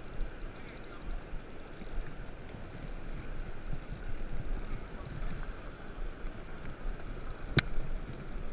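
Steady rush of flowing river water with some wind on the microphone, and a single sharp click about seven and a half seconds in.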